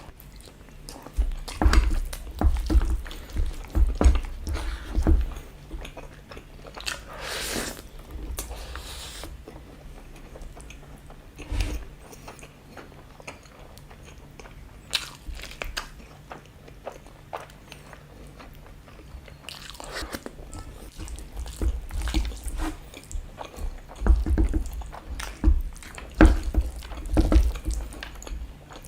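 A person eating a meat dish close to the microphone: wet chewing, biting and crunching, in dense bursts at the start and again near the end, with quieter chewing between.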